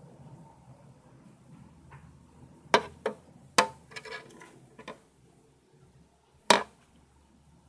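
Handling noise as metal feeding tongs and a plastic tub are handled: five sharp clicks and taps, the loudest about three seconds in, just after that, and near the end, with a brief scraping rattle in between.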